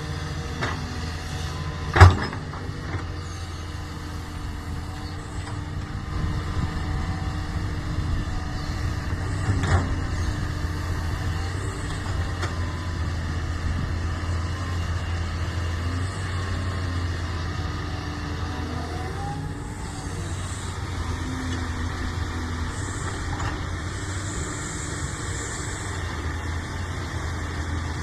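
Doosan excavator's diesel engine running steadily under working load while grading soil, with a sharp metallic knock about two seconds in and a smaller one near the middle.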